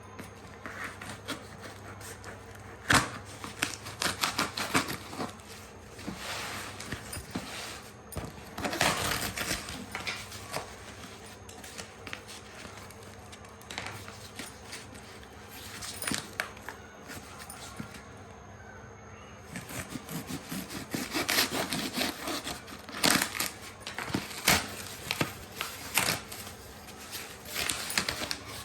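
Parcel packaging being handled and opened: irregular bursts of rustling and crinkling with sharp clicks and taps, with a quieter stretch in the middle.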